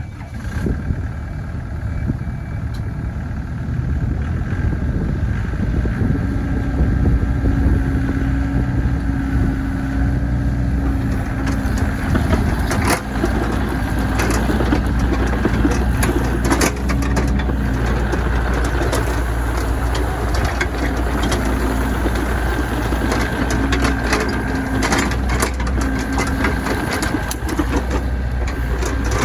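Volvo ECR58 mini excavator's diesel engine running, getting louder about four seconds in, with a steady whine from about six seconds and repeated sharp clanks and knocks through the second half.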